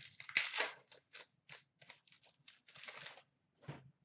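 A hockey card pack's foil wrapper crinkling as it is opened, then a run of short swishes as the trading cards are slid through one by one, about three a second.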